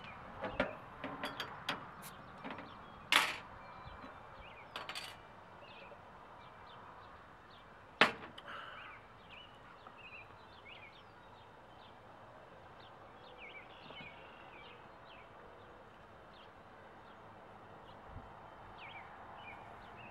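A few sharp knocks of objects handled on a glass patio tabletop in the first eight seconds, the loudest about eight seconds in, over faint bird chirps that carry on after the knocks stop.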